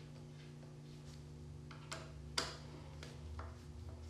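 Faint clicks of a hand screwdriver and steel neck screws at a Stratocaster's chrome neck plate as the screws are set and driven into the maple neck. Two light clicks come about two seconds in, the second sharper.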